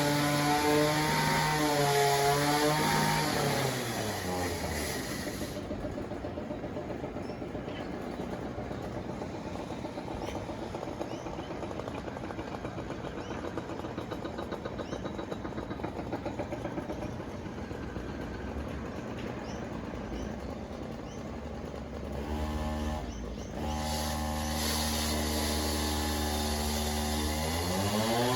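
Construction machinery engine running at high revs, winding down to a low, steady rumble a few seconds in, then revving back up about three-quarters of the way through and rising again near the end.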